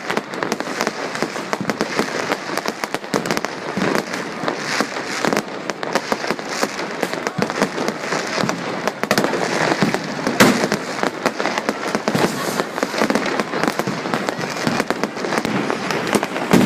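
Many fireworks and firecrackers going off at once: a dense, continuous crackle of bangs and pops, with one louder bang about ten seconds in.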